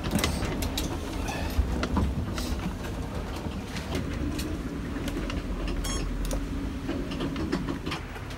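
Sailing yacht under way, heard from inside the hull: a steady low rumble of water and boat motion with scattered clicks and knocks. From about four seconds in, a steady low hum joins it.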